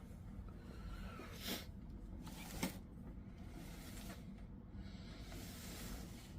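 Faint handling noise of a boxed figure being moved about: two short hissing scrapes, then a longer soft rustle near the end, over a low steady hum.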